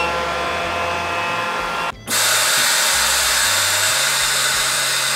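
Chamber vacuum sealer's pump running with a steady hum as its vacuum cycle starts. About two seconds in, the sound cuts to a louder, brighter, even rush of hissing air.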